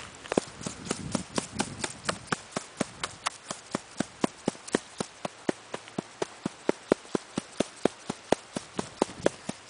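A stick knocking a giant dry puffball over and over, an even run of sharp taps at about four a second.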